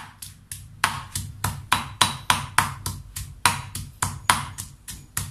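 Stone pestle pounding shallots, garlic and ginger in a stone mortar: a steady run of sharp knocks, about three a second.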